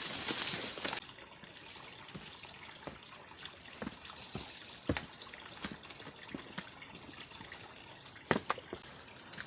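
Water trickling and dripping, with scattered small clicks and taps. A louder rushing hiss in the first second cuts off abruptly.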